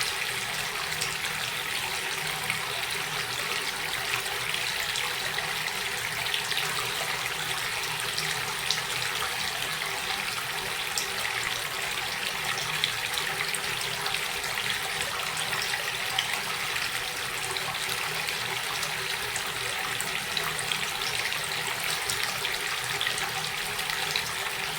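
Flowing water running steadily, a continuous splashing trickle with many small droplet ticks.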